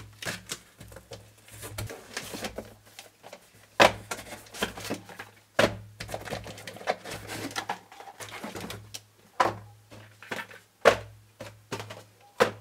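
Packaging and plastic parts of a motorcycle dash camera kit being handled and unpacked: irregular clicks, taps and knocks with some rustling, over a steady low hum.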